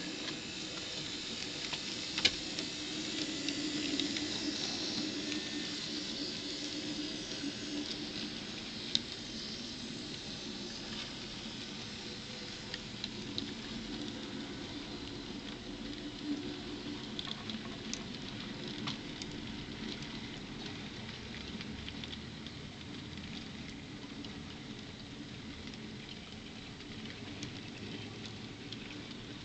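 N scale model freight train rolling past, led by a Kato Canadian Pacific AC4400CW and an Athearn NYS&W SD70M: a steady pattering clatter of small wheels on the rails over the hum of the locomotive motors. There are a couple of sharp clicks, about two and nine seconds in.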